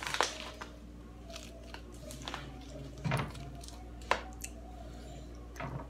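Scattered crinkles and taps of a disposable aluminium foil pan and crushed Takis chips as a hand works in the pan to coat corn on the cob, with some crunchy chewing.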